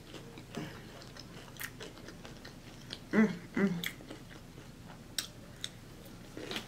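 Close-up mouth sounds of someone biting and chewing cornmeal-breaded fried shrimp: wet chewing with scattered small crunchy clicks. About three seconds in come two short hummed "mm" sounds of the voice, the loudest part.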